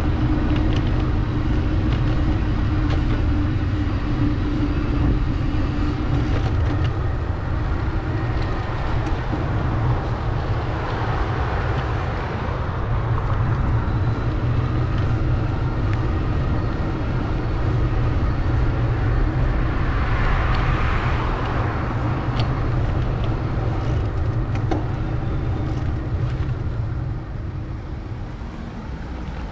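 Street traffic heard from a moving bicycle: a steady low rumble with vehicle noise swelling twice, about ten and twenty seconds in.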